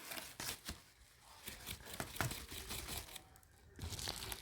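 Packaging crinkling and rustling in short irregular spurts, with small clicks and taps, as a diamond painting kit is handled and taken out.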